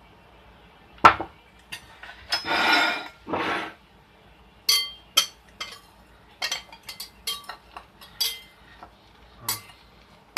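A microwave bowl is turned over onto a plate and knocked to free a coconut-flour bun that stays stuck in the ungreased bowl. A sharp knock about a second in and two longer scraping sounds are followed by a run of light clinks of dish against plate.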